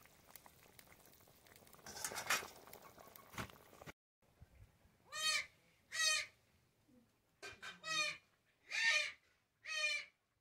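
Fish curry bubbling at a hard boil in a pot, then chickens clucking: a series of short, pitched calls, roughly one a second.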